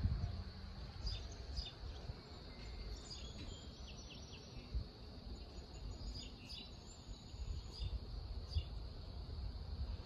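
Wild birds chirping now and then in short calls over a steady high insect drone, with a low, uneven rumble of wind on the microphone.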